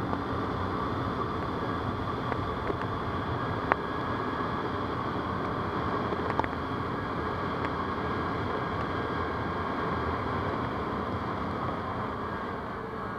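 ATV engine running steadily, with a couple of sharp clicks partway through.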